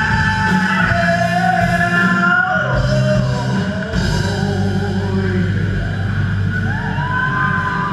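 Live rock band playing: electric guitars and drum kit under a lead melody of long held notes that slide in pitch.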